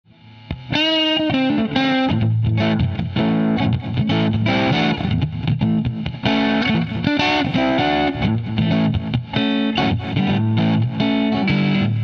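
Intro music, starting about half a second in.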